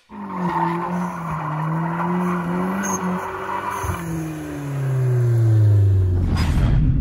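2011 Hyundai Genesis Coupe 2.0T's turbocharged four-cylinder engine running. Its note falls in pitch over several seconds, breaks off about three seconds in and picks up again before falling further, over a rushing noise, and gets louder towards the end.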